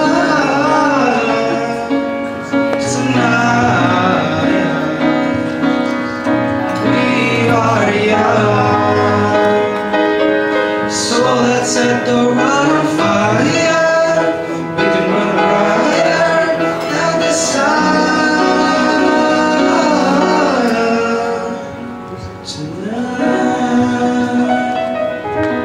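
Male voices singing a pop song medley over musical accompaniment.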